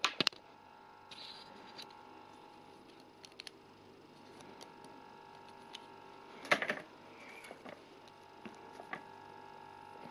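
Small plastic building bricks handled and pressed together on a model vehicle: a few sharp clicks at the start and a louder cluster of clicks about six and a half seconds in, with light ticks between, over a faint steady hum.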